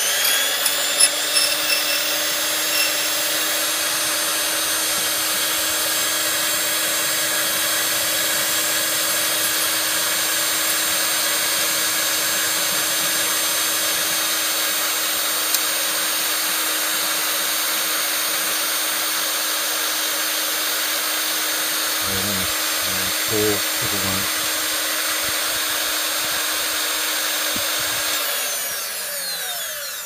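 Silca 007-A portable key duplicating machine running steadily, its electric motor and cutter wheel spinning with a constant hum and hiss. Near the end it is switched off and winds down, its pitch falling.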